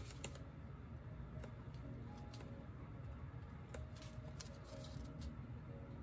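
Quiet room tone: a low steady hum with a few faint, light clicks and taps scattered through.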